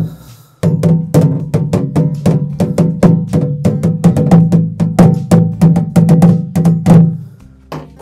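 Madal, a two-headed hand drum, played with the hands in a quick, steady rhythm of pitched strokes. It starts about half a second in and breaks off briefly near the end.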